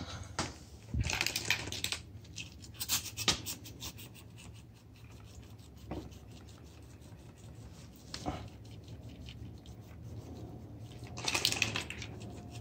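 Handling noise from a motorcycle wheel with a freshly mounted tire being moved and turned over: scattered clicks, light knocks and scraping or rubbing, the busiest stretches about a second in and near the end, over a low steady hum.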